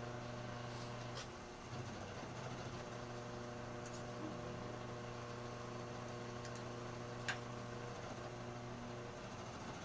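Electric motor of a small milling machine running steadily with an even hum, with a few light sharp ticks, one about seven seconds in.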